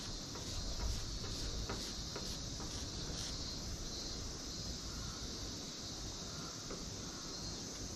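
Faint scrapes and small clicks of a spatula spreading thin body putty over a car's engine lid, over a steady high hiss.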